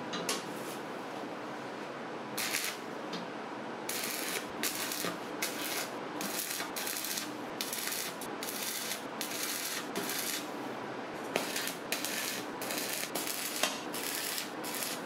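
Stick arc welding tacking a steel hinge plate onto a steel tank: a series of short bursts of arc crackle, each under a second, the first about two seconds in and then one after another for about ten seconds. A faint steady hum runs underneath.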